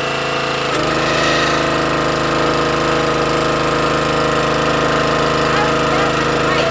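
Pull-start gas engine of a Mighty Mac hydraulic log splitter running steadily as the ram draws back from the wedge. The engine note shifts about a second in.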